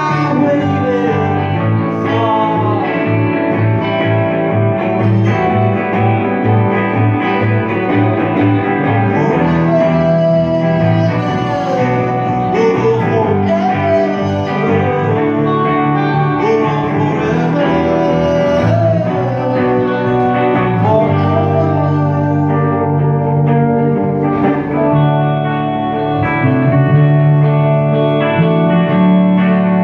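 Live rock band: a male singer belting over electric guitars and bass guitar. The voice carries through roughly the first two-thirds, then the guitars play on with little or no singing.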